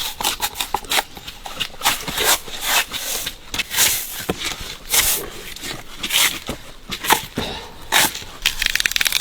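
Bark being peeled off a Phellodendron (cork tree) trunk by hand: irregular tearing and crackling as the strips come away from the wood, with many sharp snaps of uneven loudness.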